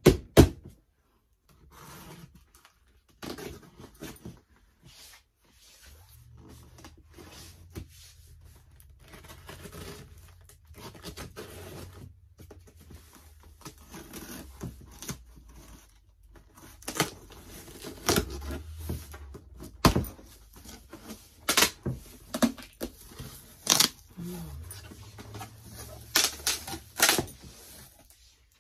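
Packing tape being cut and torn off a large cardboard box, with rustling, scraping and sharp knocks of cardboard, louder in the second half as the box flaps are pulled open.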